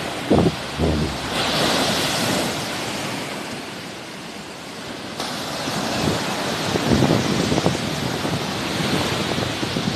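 Sea waves washing onto the shore: a surge of surf about a second and a half in that ebbs away, then builds again in the second half. Wind buffets the microphone with low thumps near the start.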